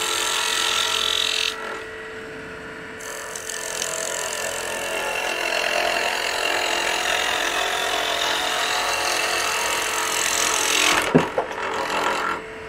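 Wood lathe spinning a spindle blank while a 3/4-inch roughing gouge cuts it round: a steady hiss of the cut over the lathe's even hum. The cutting drops away briefly about two seconds in, then picks up again, and a few sharp clicks come near the end.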